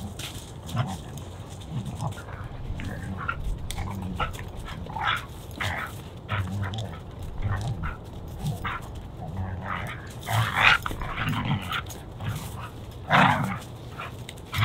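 Two dogs playing together, making short, irregular dog vocal sounds, with two louder scuffling bursts about ten and thirteen seconds in.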